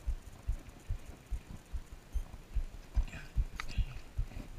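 Low, dull thumps on the microphone of a body-worn camera, irregular at about two a second, with a short sharp click about three and a half seconds in.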